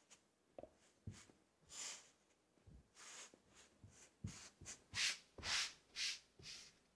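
Kinetic sand being pressed and smoothed by hand inside a metal cake ring: soft rustling scrapes and a few dull pats, then a run of louder sweeping swishes near the end as the sand's surface is smoothed flat.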